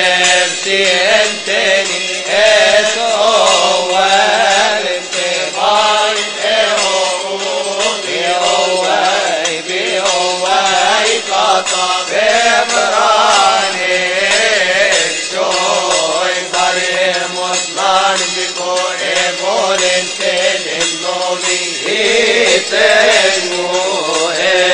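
A large male choir of Coptic Orthodox priests and deacons chanting a liturgical hymn together in long, drawn-out melodic phrases.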